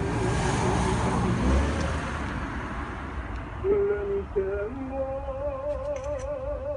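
A voice singing slow, held notes with a wide vibrato. A rush of noise fills the first two seconds.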